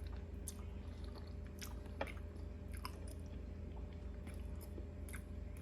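Close-up chewing of a forkful of food, with scattered wet mouth clicks and smacks at irregular intervals over a steady low hum.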